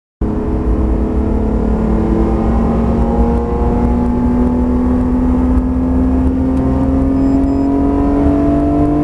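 BMW E46 M3 CSL's 3.2-litre S54 straight-six, heard from inside the cabin, pulling hard in one gear down a straight, its pitch rising steadily with no gear change. The sound cuts in just after the start.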